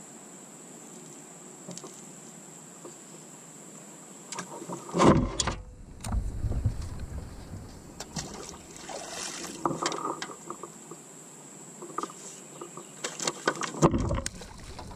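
Scattered knocks, taps and rustling from handling on a kayak, as a caught smallmouth bass is unhooked and a plastic fish-measuring board is picked up and moved. The loudest knock comes about five seconds in, with more clatter near the end.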